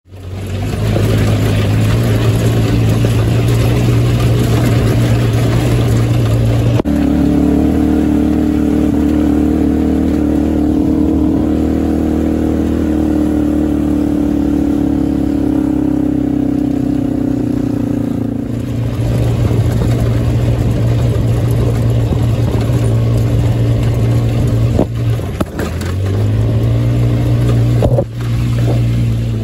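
Small go-kart engine running hard on a dirt trail, its note held fairly steady. The note shifts about seven seconds in, sags slowly, and returns to the first note near eighteen seconds.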